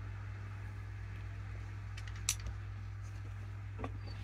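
Steady low hum of room background with a few light clicks and taps, the clearest about two seconds in, as makeup products are handled and set down.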